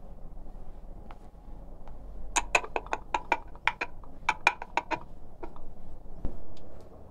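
A quick, uneven run of about a dozen sharp clicks over two or three seconds, each with the same slight ring. A few fainter ticks follow.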